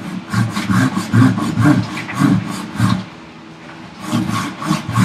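Handsaw cutting through an ash block in quick back-and-forth strokes, about three a second, with a short pause about three seconds in before the strokes resume.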